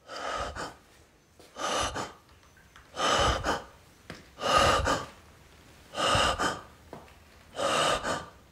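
A person breathing heavily and rhythmically close to the microphone: six drawn breaths, about one every one and a half seconds.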